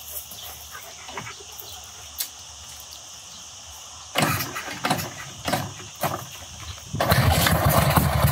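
Sanglas 500 single-cylinder motorcycle engine being kick-started. A few loud, uneven bursts come about four seconds in, then it catches on the first kick about seven seconds in and runs steadily.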